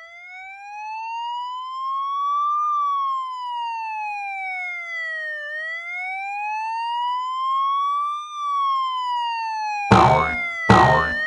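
Police-style wail siren, one clean tone sliding slowly up and down twice, about five to six seconds per rise and fall. Near the end it is cut across by loud bursts of other sound.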